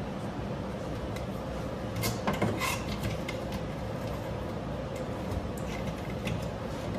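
Light plastic clicks and knocks from handling and plugging together linkable LED tube light fixtures, with a cluster of clicks about two to three seconds in and a few lighter ticks later, over steady background noise.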